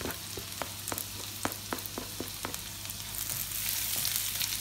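Chopped garlic sizzling in hot cooking oil in a non-stick wok, stirred with a plastic slotted spatula that clicks against the pan about a dozen times in the first two and a half seconds. The sizzle grows louder about three seconds in.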